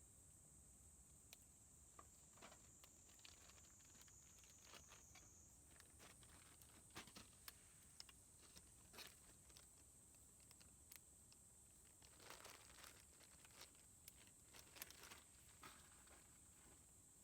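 Near silence with faint scattered clicks and short rustles, a denser patch of rustling about twelve seconds in, over a faint steady high hiss.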